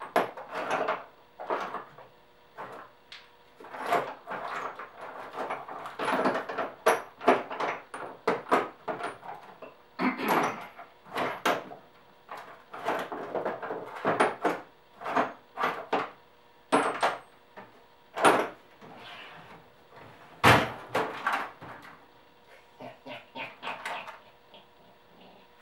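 Hand tools being handled: irregular clinks, knocks and short rattles throughout, with one louder, heavier knock about twenty seconds in.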